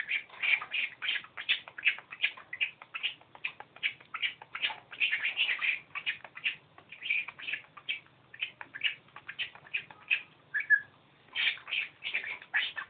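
Budgerigar chattering in a fast, unbroken run of short chirps and warbles, pausing briefly about ten and a half seconds in before starting again.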